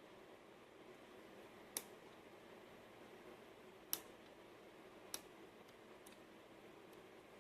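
Three short, sharp metallic clicks over near silence: a lock pick working the springless sliders of a CX-5 high-security lock cylinder.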